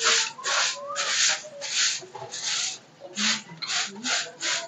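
Soft grass broom (phool jhadu) sweeping an earthen floor: a run of quick swishing strokes, about two a second.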